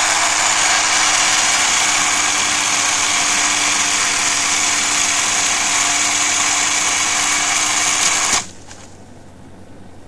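Ryobi 10-inch battery-powered chainsaw running steadily under load as its chain cuts through a tree trunk. It stops abruptly about eight seconds in.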